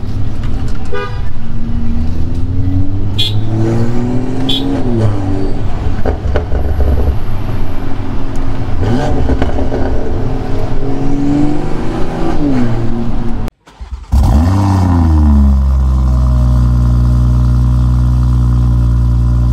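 BMW M340i's turbocharged 3.0-litre inline-six through an Active Autowerke aftermarket exhaust, pulling under acceleration as heard inside the cabin, its pitch climbing and dropping back at each upshift, twice. After a brief cut, the same exhaust is heard at the tailpipes: a short rev falling away into a steady idle with a deep, bassy tone.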